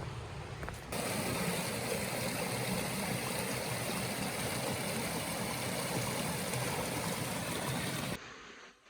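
Steady rush of running water, starting suddenly about a second in and cutting off suddenly near the end.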